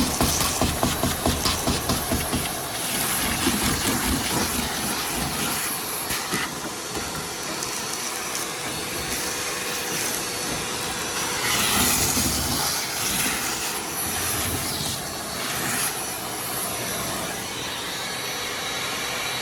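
Power tool cutting into the rusted sheet-metal roof panel of a VW bay-window bus: a loud, hissing mechanical noise that pulses about five times a second for the first couple of seconds, then runs steadily with some swells.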